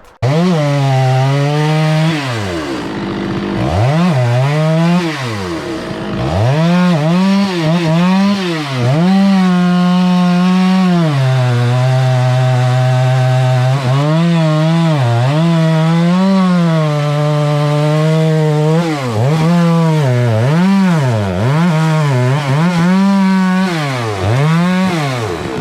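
Two-stroke chainsaw running near full throttle, its engine pitch dropping and climbing back again and again, with a long steady stretch in the middle and quicker dips near the end.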